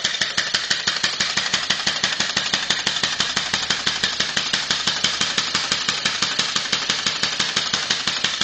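Two-cylinder Sears air compressor converted to a steam engine, running on compressed air with a rapid, even beat from its home-made valve head.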